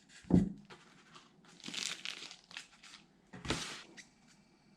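Packaging being handled: a thump about a third of a second in, then two bursts of crinkling and rustling, around two seconds in and again near three and a half seconds.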